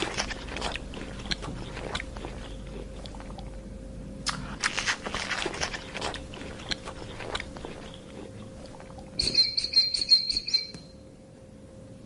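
An animal chewing and crunching food in two runs of crisp bites. About nine seconds in comes a rapid string of high, squeaky chirps lasting under two seconds.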